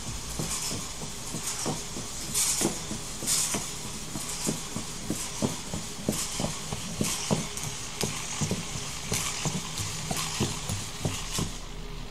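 Hobby servos of a hexapod robot driving its legs in a walking gait with two legs lifted at a time: a rapid, irregular run of clicks and taps from the feet and servo gears, with repeated bursts of high hissing whine. The servo gears are almost worn away and creak and grate.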